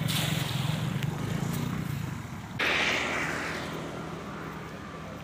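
A thrown cast net lands on the water about two and a half seconds in: a sudden splashing hiss as its weighted edge hits the surface, fading over a second or so. Before that, a steady engine hum runs under it and drops away.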